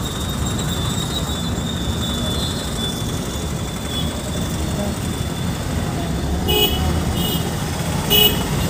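Steady engine and road rumble heard from inside a moving bus in city traffic, with three short horn toots in the last two seconds.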